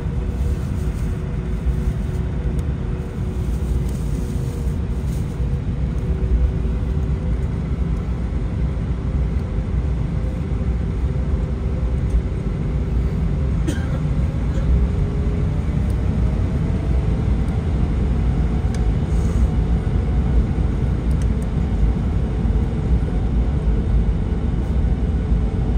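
Airbus A321-200 jet engines heard from inside the cabin over the wing: a steady low rumble with whining tones as the airliner rolls slowly on the runway. Past the middle, one whine rises in pitch over several seconds as the engines speed up.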